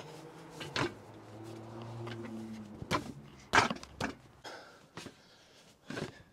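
Metal tube frame parts of a camping cot being handled and fitted together: several sharp knocks and clacks, with a brief low steady hum in the middle.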